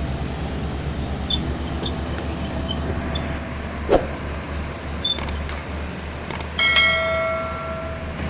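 Heavy diesel engine running steadily with an even low pulse. A single sharp knock comes about four seconds in, and a little after six seconds a metal clang rings out and fades over a second or so.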